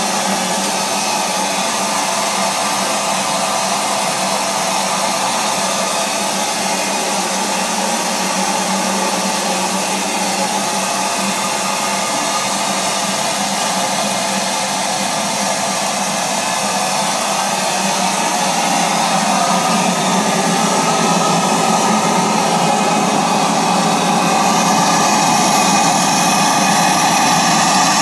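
Model paddle steamer's D-10 steam engine running under steam, a steady hissing rush that grows somewhat louder about two-thirds of the way through.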